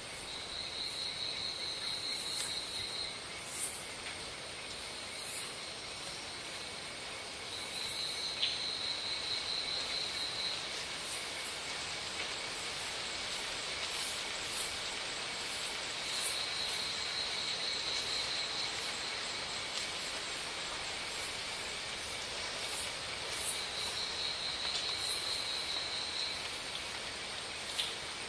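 Insects trilling outdoors: a rapid, pulsed, high trill about three seconds long, repeating about every seven seconds over a steady high hiss of insect chorus.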